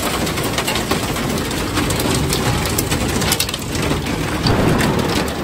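Heavy rain and hail falling on a narrowboat's steel roof, heard from inside the cabin: a steady rush dotted with many sharp ticks.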